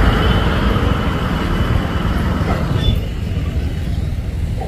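Road traffic noise: a steady low rumble of passing vehicles, the higher sounds thinning out about three seconds in.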